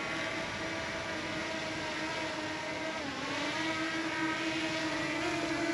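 DJI Mini 2 quadcopter hovering low, its propellers giving a steady whine; the pitch dips and climbs back about three seconds in.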